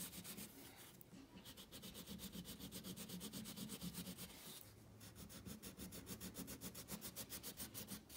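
Crayon rubbing hard across paper in quick back-and-forth shading strokes, several a second, pausing briefly twice.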